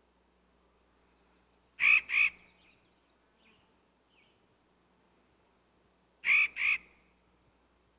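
Nutcracker calling: two pairs of quick calls, about four and a half seconds apart, with two faint short notes in between.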